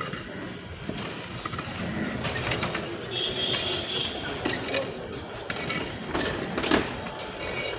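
Road-repair work noise: metallic clattering and scraping with several sharp knocks over a steady mechanical background.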